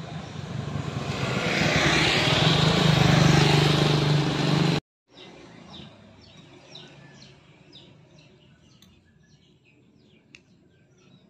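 A motor vehicle's engine coming closer on the road, growing louder to a peak about three to four seconds in, then cut off suddenly. After that, faint birds chirping.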